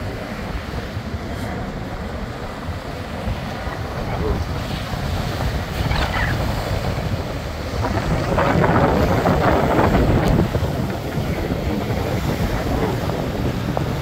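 Small surf breaking and washing up a sand beach, with wind buffeting the microphone. One wave breaks louder about eight seconds in and lasts a couple of seconds.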